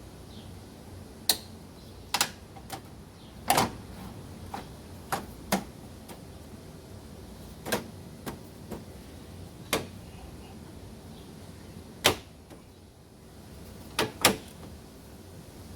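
About a dozen sharp plastic clicks and knocks at uneven intervals, some in quick pairs: the tabs and clips of a truck's front grille being pushed and snapped into place.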